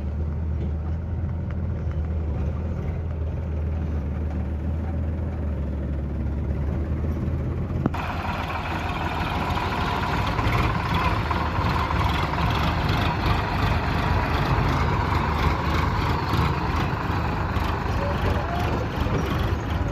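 Tractor or backhoe diesel engine running with a steady low drone. About eight seconds in, the sound cuts abruptly to a louder engine working under load, with more clatter in the higher range.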